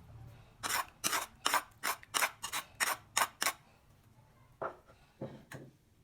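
A quick run of about ten sharp cutting strokes, roughly three a second, then a pause and three more spaced strokes near the end.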